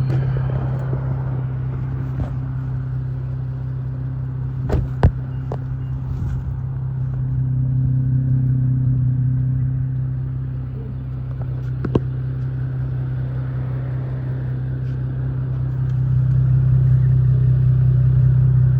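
Car engine running with a steady low drone that swells a little twice, with a few sharp clicks about five seconds in and again near twelve seconds.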